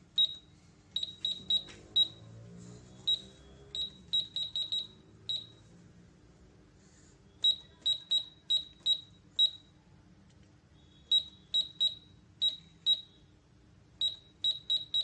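Toy electronic cash register beeping once per key press as an order's prices are keyed in to total them: short, high beeps of one pitch in quick runs of several, with brief pauses between the runs.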